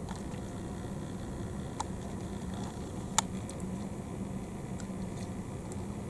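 Steady low hum over a faint hiss, broken by two sharp clicks: a small one near two seconds in and a louder one about three seconds in.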